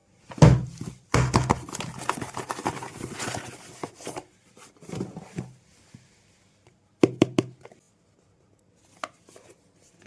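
Watch packaging being handled and opened: sharp knocks and clicks, a stretch of rustling and scraping for about three seconds, then a few sharp taps around seven seconds in.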